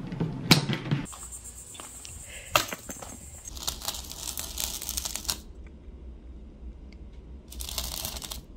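Handling noises from a glass aquarium still in its cardboard packaging and pieces of dry reef rock being picked up and moved: several stretches of rustling and scraping with scattered sharp clicks.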